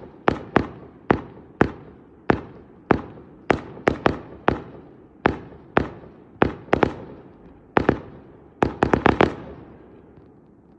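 Fireworks display: a string of sharp bangs from bursting aerial shells, about two a second, each trailing off in an echoing tail. About nine seconds in, five or so go off in quick succession, then the bangs stop and the rumble dies away.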